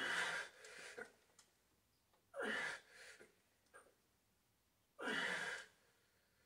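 A man's heavy breaths in rhythm with the reps of a heavy barbell bench press: three loud, breathy rushes, each under a second long, about two and a half seconds apart.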